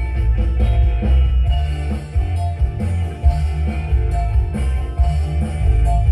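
Music played loud through a large outdoor sound system's stacked speaker cabinets during a sound check, with heavy bass.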